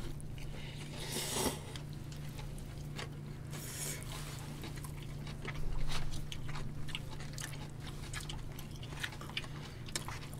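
People eating with chopsticks: chewing and small clicks of chopsticks and utensils against bowls, with two short rushing noises in the first few seconds, over a steady low hum.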